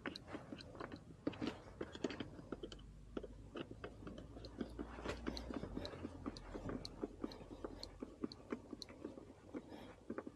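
Quick, irregular small clicks, crackles and rattles of hard plastic being handled, as the engine's plastic air-filter housing and its clips are worked back into place by hand.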